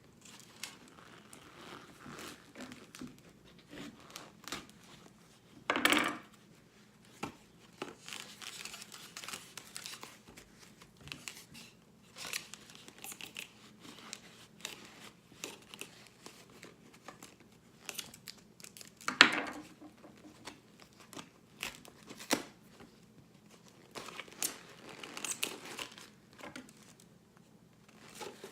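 Packing tape being torn and peeled off a cardboard box, with crinkling and scraping of the cardboard and two much louder rips, one about six seconds in and one about two-thirds of the way through.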